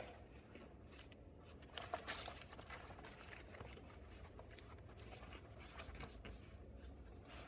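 Faint scuffling and light claw scratching of 5.5-week-old pug puppies' paws moving about on a quilted play mat, with a louder flurry of scuffs about two seconds in.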